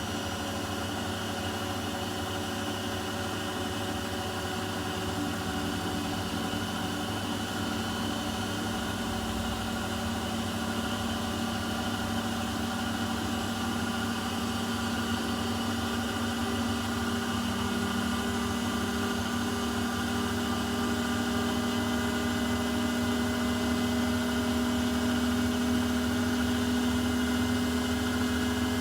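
Beko washing machine on its spin cycle: the drum and motor spin with a steady hum and whine, rising slightly in pitch and growing a little louder as the spin speed climbs.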